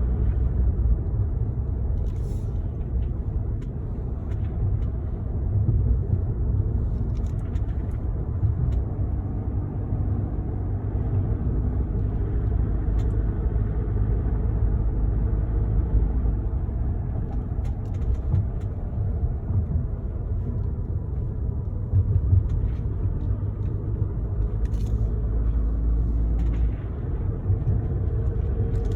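Car driving on the highway: a steady, low rumble of road and engine noise.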